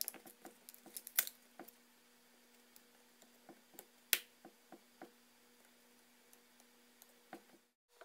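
Scattered small clicks and taps of tools and small parts being handled while an iPhone 4S is put back together, the sharpest about a second in and again about four seconds in, over a faint steady hum.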